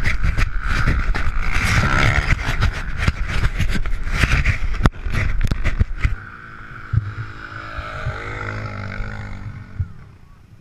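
Dirt bike engine running hard, buried under heavy wind buffeting and knocks on the bike-mounted camera's microphone. About six seconds in it drops to a quieter, steadier engine note that climbs a little before fading near the end.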